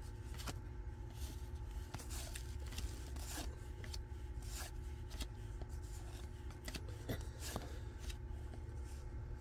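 Stiff old cardboard baseball cards (1981 Topps) being slid off a small stack and flipped one at a time in the hand, giving soft scattered scrapes and light clicks over a steady low room hum.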